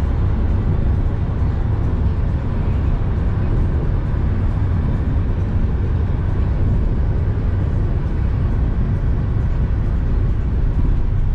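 Steady low rumble of road and engine noise heard from inside a moving van's cabin as it drives along a paved road.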